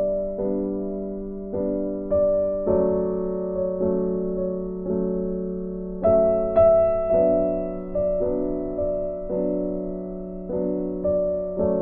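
Background piano music: notes struck at an even, unhurried pace, each one fading before the next.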